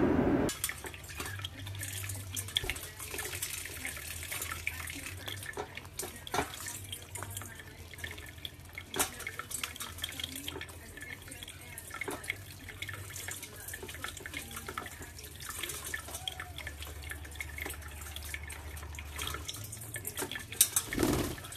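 Kitchen tap running steadily into a stainless steel colander in a sink, the water splashing as budgerigars bathe and flutter in it, with scattered small sharp splashes and clicks.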